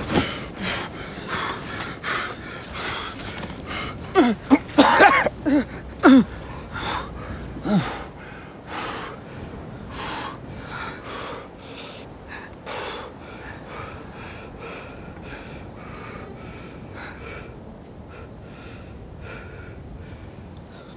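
A wounded man's laboured, wheezing breathing, with a run of loud gasps about four to six seconds in, then softer, quieter breaths.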